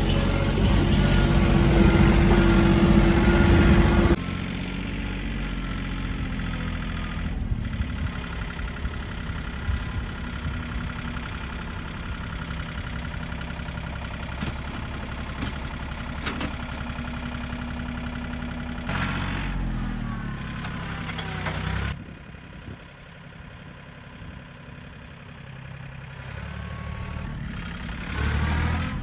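Diesel engine of a TYM compact tractor running while it works with its front-end loader. The sound changes abruptly at several points: it is louder for the first few seconds and quieter for a stretch about three-quarters through.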